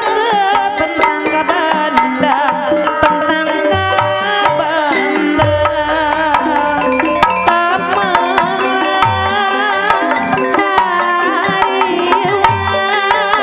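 Live Sundanese jaipongan music: kendang hand drums beating under a wavering melody with keyboard, played continuously for the dance.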